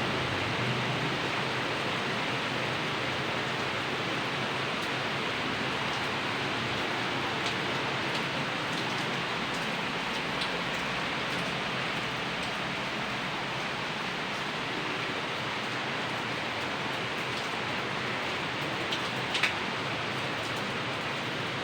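Steady rain falling in a constant hiss, with a couple of sharper drip or tap sounds near the end.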